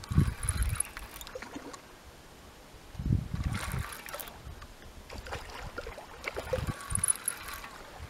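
A hooked carp splashing and thrashing in shallow water at the river's edge as it is played in on the line, with bursts of low wind rumble on the microphone.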